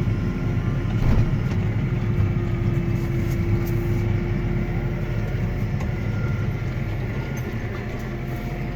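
Claas Arion 420 tractor engine running while the reversible plough is turned over hydraulically. There is a steady whine for the first five seconds, a knock about a second in, and the engine eases off slightly toward the end.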